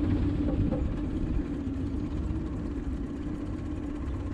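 Boat motor idling steadily, a constant hum over a low rumble.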